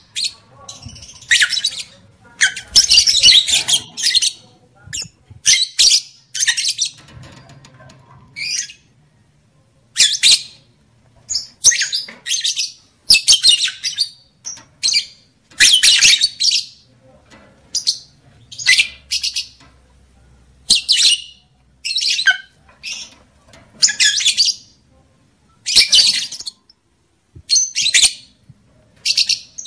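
Lovebirds calling: a series of short, shrill, harsh squawks and chatters, roughly one a second with brief pauses between.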